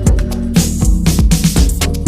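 Background music: an upbeat electronic dance track with a steady kick-drum beat and a repeating bass line.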